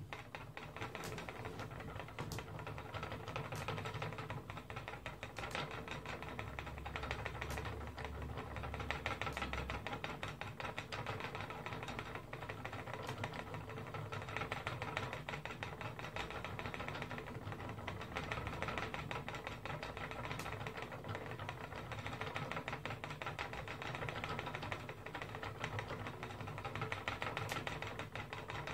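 Wooden flyer spinning wheel running as wool is spun: a steady fast whirring and rattling of the turning wheel and flyer. It starts abruptly as the wheel is set going.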